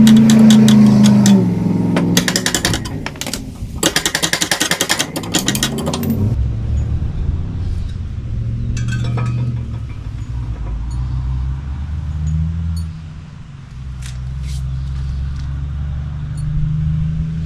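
Impact wrench whirring, then hammering in two rapid bursts as it breaks loose the mower deck's blade bolts, followed by a steady low machine hum.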